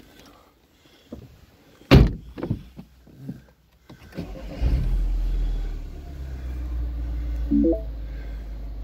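A sharp knock about two seconds in and a few lighter clicks, then the Mini Cooper S's 1.6-litre turbocharged four-cylinder starts a little after four seconds in, flares briefly and settles to a steady idle, heard from inside the cabin. A short rising beep sounds near the end.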